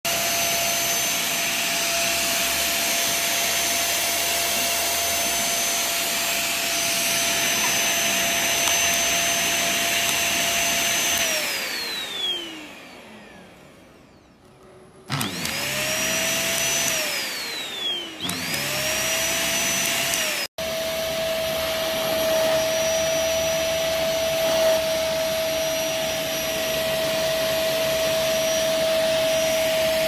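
Jetzt V10 PRO UV handheld dust-mite vacuum cleaner running with a steady motor whine. About eleven seconds in it is switched off and the whine falls in pitch as the motor winds down. A few seconds later it is switched back on and rises again, goes off and on once more, then runs steadily.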